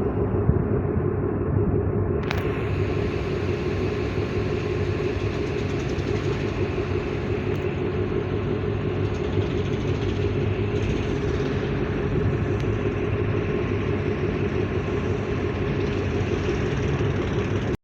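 Tugboat's diesel engine running steadily, a constant low drone with a steady hum.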